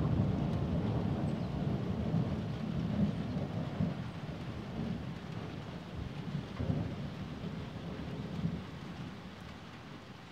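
Distant thunder: a long low rolling rumble, loudest at the start, with a few smaller swells as it slowly dies away.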